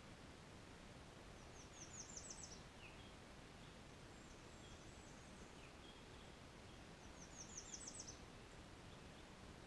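A small songbird sings twice, about six seconds apart. Each song is a quick run of high, thin notes that climb and grow louder, with a few faint short calls between.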